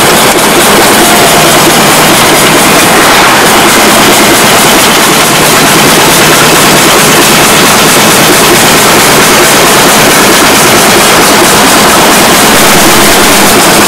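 Loud, steady rush of wind and road noise from a moving Volkswagen split-screen van, picked up through an open window, with a steady low engine drone underneath.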